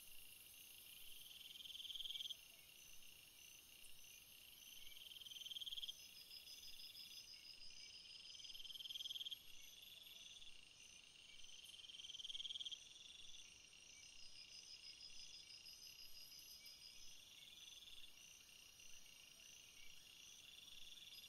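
Faint insect-like chirping and trilling: a high trill swells and cuts off sharply about every three to four seconds during the first half, over a steady run of quicker, higher chirps that carries on throughout.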